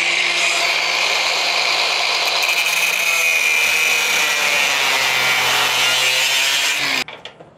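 Cordless angle grinder cutting through the steel shackle of a padlock on a gate: a steady motor whine under a loud, hissing grind of the disc on metal. The motor note drops a little about halfway as the disc bites, and the grinding cuts off suddenly about seven seconds in as the cut is finished.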